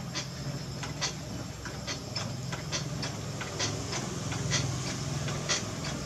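Potter's wheel running with a steady low hum as wet hands shape a clay vase on it, with short irregular high clicks scattered throughout.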